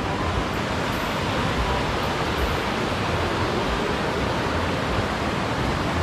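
Rushing water of a rocky waterfall stream, a steady even roar with no breaks.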